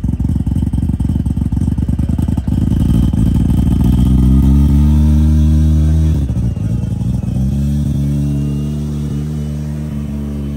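Race-prepared Mazda sedan's engine idling unevenly, then revving up as the car pulls away. The revs drop sharply about six seconds in, then come back up and slowly ease off as it drives on.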